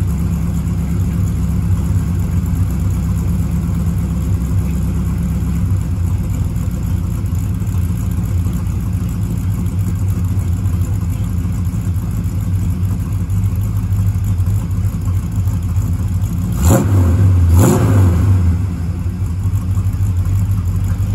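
1965 Dodge Coronet's freshly built small-block Mopar V8 idling steadily through its new full exhaust, revved twice quickly near the end before settling back to idle.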